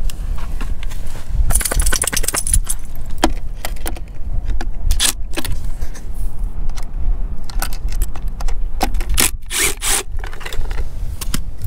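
Milwaukee 18-volt cordless impact wrench hammering in short bursts on a trailer wheel's lug nuts, about a second and a half in and again near the end. Metal clinks and scrapes of nuts and socket fall in between.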